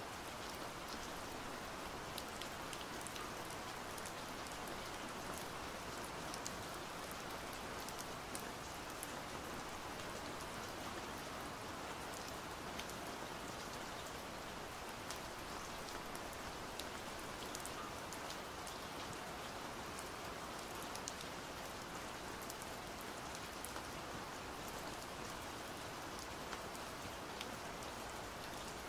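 Steady rain: an even hiss with scattered sharp ticks of individual drops.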